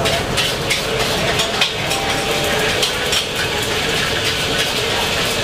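Spatula scraping and clinking against a large wok as noodles are stir-fried, repeated sharp scrapes over a steady frying hiss, the scrapes densest in the first couple of seconds.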